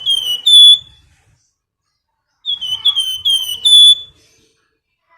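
Flamboyan (flame-breasted sunbird) singing its high, thin whistled 'nyiul' call: two quick runs of about five short notes, each dropping slightly in pitch, the last note of each run longer and loudest. The second run starts about two and a half seconds in.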